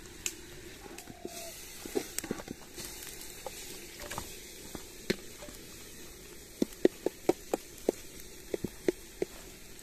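Raw chicken pieces tipped from a steel bowl onto a banana leaf: scattered soft knocks and leaf crackle over a faint hiss, with a run of sharp clicks, about three a second, in the second half.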